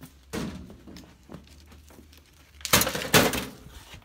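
Junk and scrap clattering and rustling as it is handled or bumped, in two bouts, the louder one about three seconds in.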